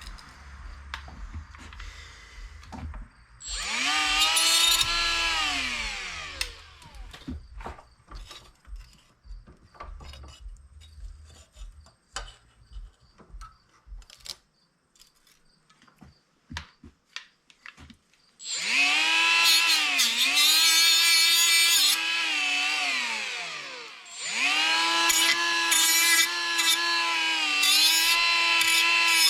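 A handheld electric power tool spins up about three seconds in, runs briefly and winds down, with scattered clicks and knocks after it. From about halfway it runs again with its pitch dipping under load, stops briefly, then starts again and keeps running.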